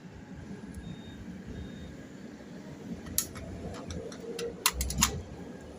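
A few sharp clicks and knocks, one about three seconds in and a quick cluster of louder ones near the end, over a faint low background noise.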